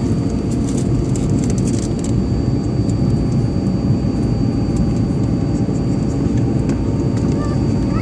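Steady airliner cabin noise in flight: a low, even rumble of engines and airflow with a faint steady high tone above it, and a scattering of small faint clicks in the first couple of seconds.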